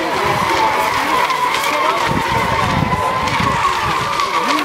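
Several electric RC racing boats running flat out, with a steady, slightly wavering high-pitched motor and propeller whine over the hiss of spray.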